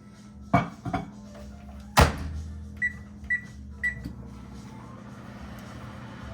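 Microwave oven being loaded and started: a few knocks, the door shut with a loud latch click, three keypad beeps, then the oven starts running with a steady hum.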